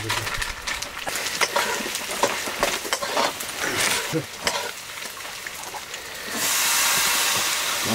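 Food frying in a pan while being stirred, with a steady run of scrapes and small clicks under the sizzle. About six seconds in, a loud, even sizzling hiss sets in and holds for over a second.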